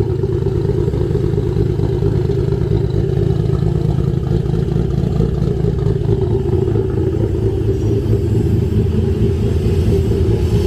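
Freshly built, single-turbo 2JZ-GTE straight-six in a Mk4 Toyota Supra, with 272 cams and a straight-piped exhaust, idling steadily just after its first start.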